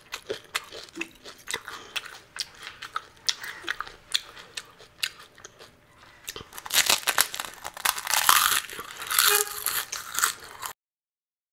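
Close-miked eating of pani puri: scattered small crunches and mouth clicks, then a louder run of crunching from about seven seconds in as the crisp, hollow fried puri shells are bitten and chewed. The sound stops abruptly near the end.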